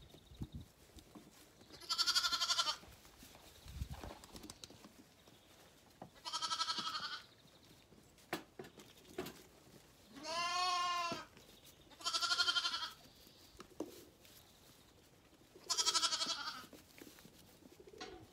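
Zwartbles lambs bleating: five wavering bleats a few seconds apart, the middle one lower-pitched and slightly longer.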